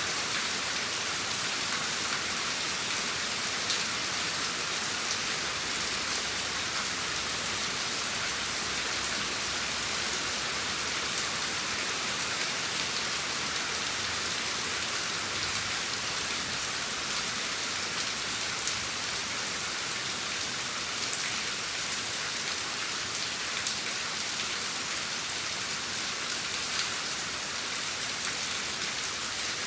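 Steady rain falling in an even hiss, with scattered single drops ticking sharply now and then.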